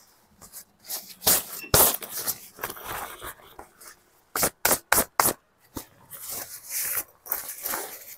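Tent fabric rustling and flapping as the tent is held up and shaken out, with a quick run of sharp flaps about halfway through.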